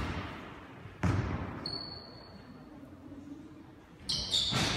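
A basketball bounces once on a sports-hall floor about a second in and rings out in the large hall. Near the end comes a burst of high squeaks and scuffling from players' shoes on the court.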